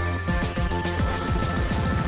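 Background electronic music with a fast, steady beat over a held bass line.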